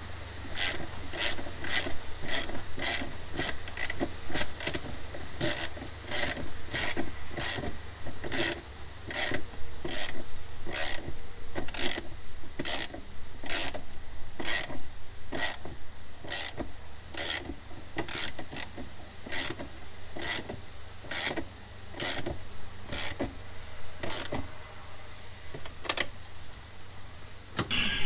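Hand ratchet clicking in a steady rhythm, about two to three clicks a second, as a fastener is driven at the Jeep's dash. The clicking slows and stops near the end.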